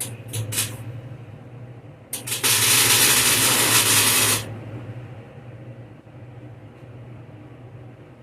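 Two brief hissing spurts, then a loud, even hiss lasting about two seconds that stops abruptly, over a constant low hum.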